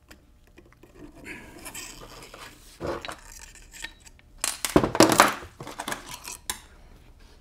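Steel transmission parts clinking and clanking as a T5 5-speed mainshaft and its gears are handled on a steel workbench. There is a single knock about three seconds in, a louder cluster of clanks about five seconds in, and another click near the end.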